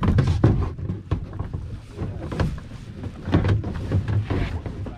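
Plastic kayak seat being adjusted: a run of irregular knocks, bumps and rubbing against the hull.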